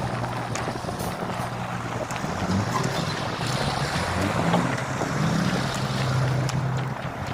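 Low, steady engine hum of road traffic whose pitch shifts now and then, mixed with wind noise on the microphone.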